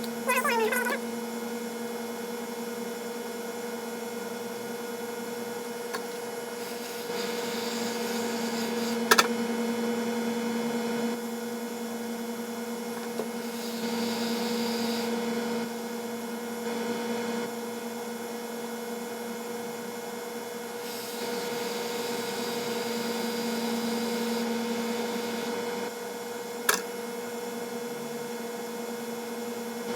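Steady electrical mains hum from the repair bench, with a faint hiss that swells a few times. Two sharp clicks, one about nine seconds in and one near the end.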